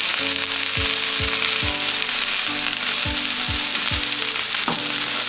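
Sliced bell peppers and onion sizzling in a hot pan over high heat: a steady frying hiss. Soft background music with a regular beat runs underneath.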